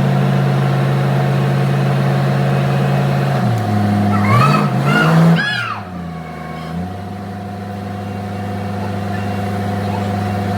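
Forklift engine running steadily. About halfway through, its note wavers up and down as it is revved, then drops off briefly and settles back to a steady run.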